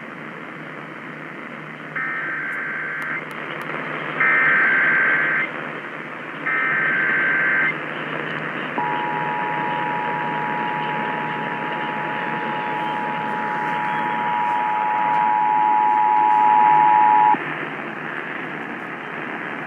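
Emergency Alert System header over AM radio: three one-second bursts of SAME digital data tones, then the steady two-tone EAS attention signal held for about eight and a half seconds, under constant radio static. It announces a Required Monthly Test.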